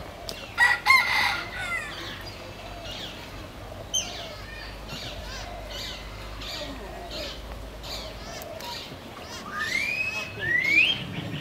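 Birds calling: a loud call with several pitches about half a second in, faint repeated chirping, and two rising whistles near the end.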